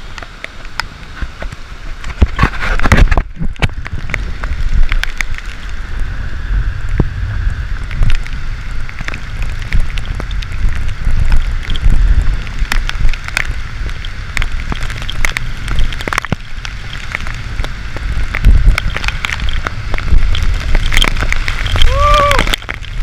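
Gusting storm wind buffeting the microphone, with heavy rain falling and many sharp raindrop clicks on the camera.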